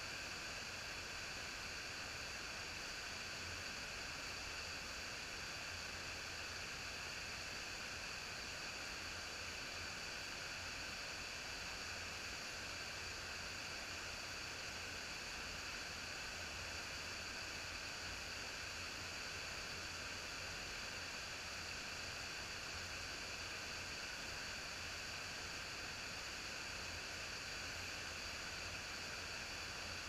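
Tumalo Creek spilling over a small waterfall and rapids: a steady, unbroken rush of water.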